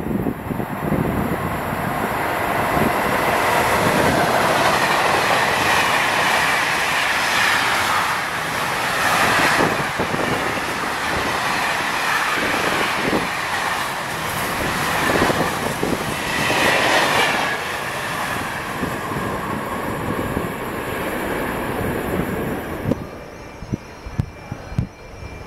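Container freight train passing at speed: a steady loud rush of wagons rolling over the rails, with clatter from the wheels and swells of higher metallic rail noise. It cuts off suddenly near the end.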